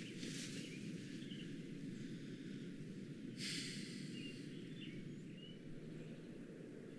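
Outdoor ambience: a steady low rumble of background noise with small birds chirping faintly now and then. A brief rush of noise comes about three and a half seconds in.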